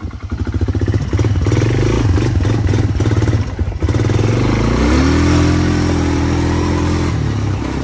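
Arctic Cat DVX 250 ATV's 250 cc four-stroke single revving as the quad pulls away under throttle. The engine dips briefly about halfway through, then rises in pitch, holds a steady high note for about two seconds, and eases off near the end.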